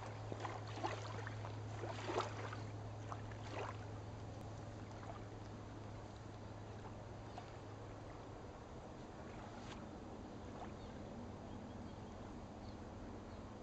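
River water lapping and splashing lightly at the bank, the small splashes mostly in the first few seconds and only now and then after that, over a faint low steady hum.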